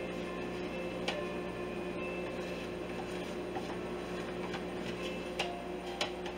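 A plastic whipped-topping tub being emptied and scraped out over a plastic mixing bowl, giving a few light taps and clicks, the clearest about a second in and near the end. Under it runs a steady hum.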